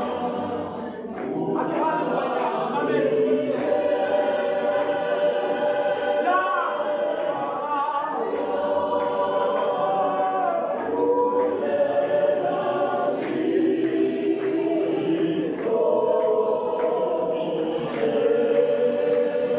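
Church choir of men and women singing a cappella in harmony, holding sustained chords that change every second or two.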